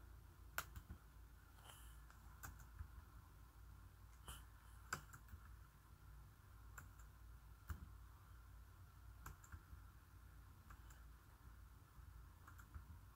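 Faint clicks of a laptop's touchpad and keys, a dozen or so at irregular intervals, over a low steady hum.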